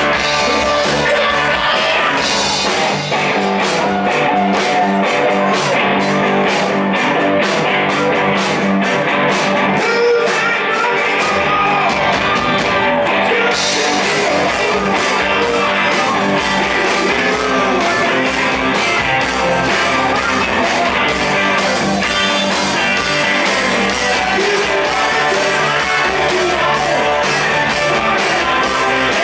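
Live rock band playing loud through a PA system: electric guitars, drums and lead singing in a driving rock beat.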